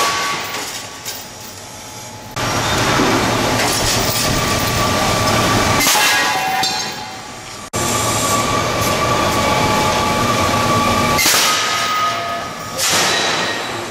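Air-powered PowerHammer Model 415 degating hammer running in long bursts of rapid hammering against metal castings, knocking the gates off. Each burst lasts several seconds with steady high tones ringing through it, and the hammer cuts in and out abruptly.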